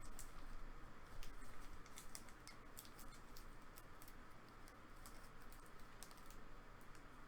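Faint, irregular light clicks and taps, spaced unevenly, over a low steady room hum.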